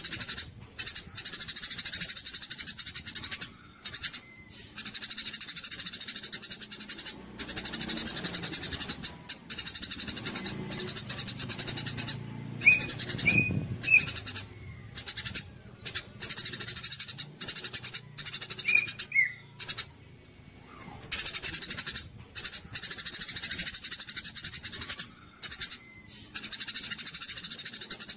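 Songbird singing a fast, high, chattering song in long bouts broken by short pauses, with a few separate lower chirp notes in the middle.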